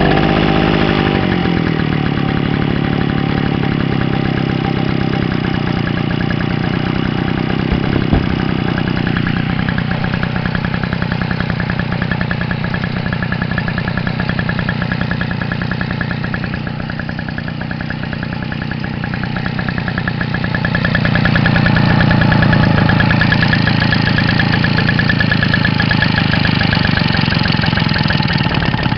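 Small 34cc stationary charging-set engine running just after starting, its speed rising at first and then steady. It runs quieter through the middle and picks up again about two-thirds of the way through.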